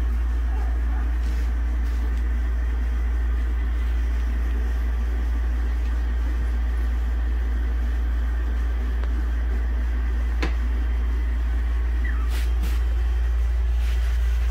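A steady low hum with faint background noise, and a few light clicks near the end.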